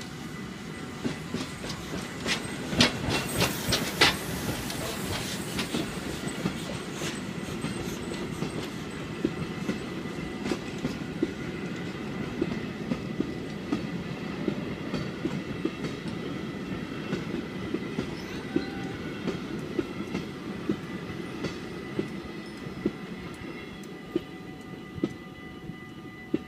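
VSM heritage steam train passing over a level crossing: wheels clacking in a steady series over the rail joints, with the loudest sharp clacks a few seconds in, over a continuous rumble. The crossing's warning bells ring steadily underneath.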